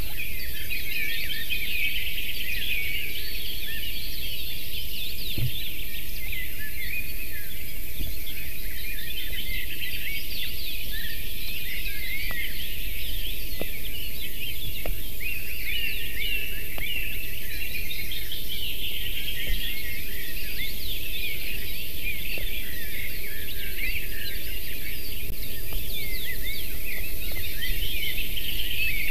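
A chorus of many small songbirds, with dense overlapping chirps and trills throughout, over a steady low background noise.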